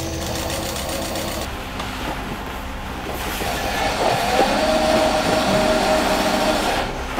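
Industrial sewing machine running at speed with a steady mechanical clatter. About four seconds in, a sustained whine joins it and gets louder.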